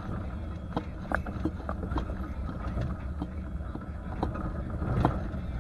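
1989 Ford Bronco XLT driving over a rough dirt track: a steady low drone of engine and tyres, with scattered knocks and rattles as the truck bounces over the ruts. The loudest knock comes about five seconds in.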